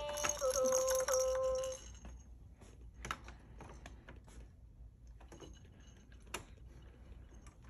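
Electronic toy piano sounding two short electronic notes, the second held for about a second. Then a few sharp clicks and light taps as a baby handles the toy.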